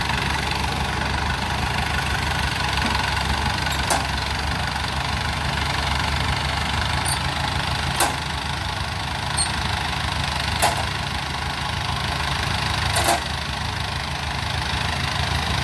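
Engine idling steadily, with a few separate sharp knocks or clacks over it.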